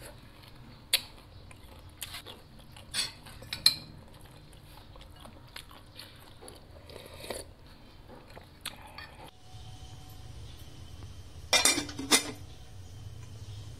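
Eating at a table: a metal spoon clicks against ceramic bowl and plate several times, with chewing. Then a steady low hum starts, and an aluminium pot lid clanks twice as it is handled near the end.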